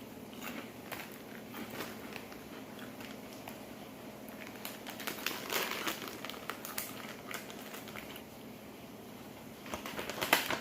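Kitchen handling sounds during food preparation: crinkling and rustling with many light clicks and taps, busiest around the middle and in a quick flurry just before the end.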